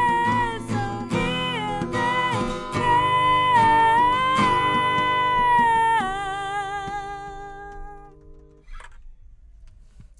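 Acoustic guitar strummed under a sung voice holding long notes with vibrato as the song closes; the voice drops to a lower held note about six seconds in, and the guitar and voice die away about eight seconds in.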